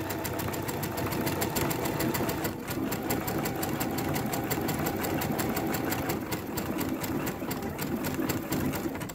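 Brother Innovis 6700D (Quattro 2) computerized sewing machine running at speed while sewing a decorative character stitch: a fast, steady clatter of needle strokes.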